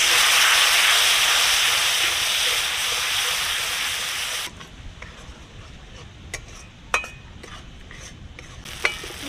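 Spice paste sizzling hard in hot mustard oil in a kadai after a splash of water, stirred with a flat spatula. About four and a half seconds in the hiss drops away abruptly to a quieter sizzle, with a few sharp clicks of the spatula against the pan.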